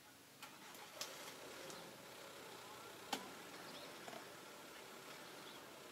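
Faint background hiss with a few sharp clicks or snaps, the loudest about three seconds in.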